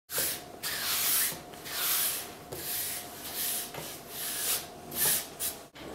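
Repeated rasping, scraping strokes, roughly one a second and uneven in length, over a faint steady hum; they stop abruptly near the end.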